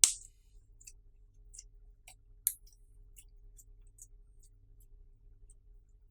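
Clear slime being squished and worked, giving scattered small sticky clicks and crackles. A sharp pop comes right at the start and another about two and a half seconds in, over a faint low hum.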